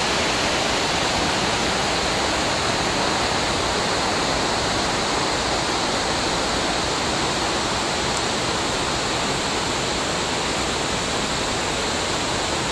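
River water rushing over shallow rapids: a steady, unbroken rush.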